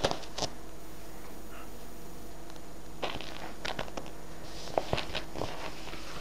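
A kitten pawing and wriggling under a cloth: scattered soft rustles and scratches of fabric, bunched near the start, about three seconds in and again around five seconds in.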